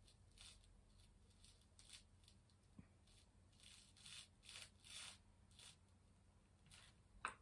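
Near silence, with a scattering of faint, short rustles and rubs from hands handling craft materials, one a little stronger near the end.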